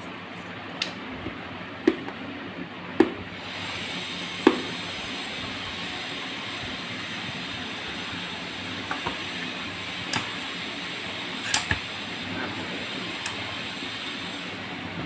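Cardboard smartphone box and its inner paper trays being handled: scattered light knocks and taps, about seven in all, over a steady hiss that grows a little brighter about three seconds in.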